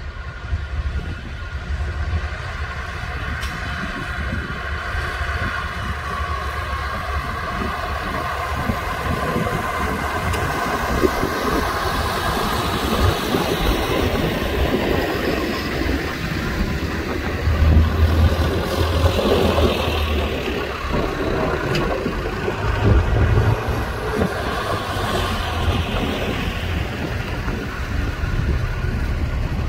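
A line of farm tractors driving slowly past, their diesel engines running with a steady low rumble. The rumble swells as the nearer tractors go by, loudest about 18 and 23 seconds in.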